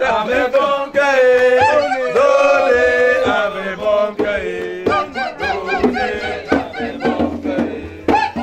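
A group of people singing a chant together, with rhythmic clapping coming in about halfway through.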